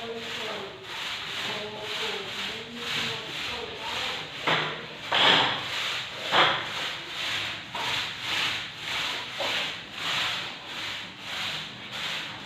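A paintbrush scrubbing paint onto a plastered wall in steady back-and-forth strokes, about two a second, with two harder strokes about halfway through.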